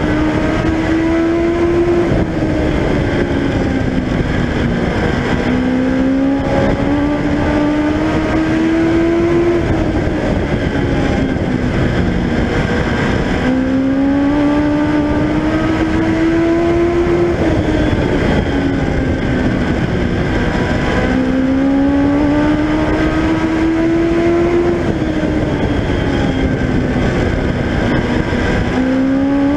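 Onboard sound of a Legend race car's Yamaha motorcycle engine at full racing pace. The engine note climbs on each straight and drops into each turn, four times over, under a dense rushing noise.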